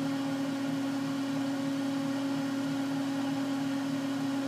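Steady electrical hum of electronic bench equipment, with a faint regular pulsing beneath it.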